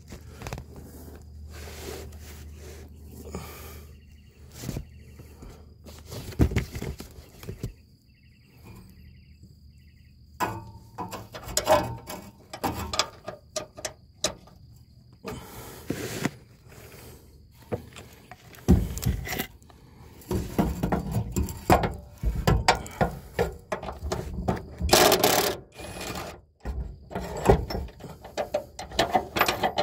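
Hand wrenches working the bolts of a car's transmission crossmember from underneath: irregular metallic clicks, taps and clanks, sparse at first and busier in the second half.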